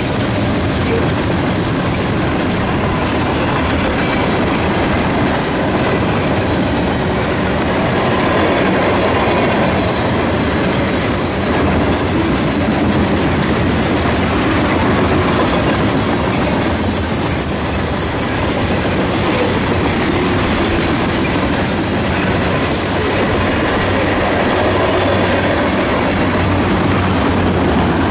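Freight train cars, tank cars and then autoracks, rolling past with a steady rumble and wheels clattering on the rails, with brief high-pitched squeals now and then.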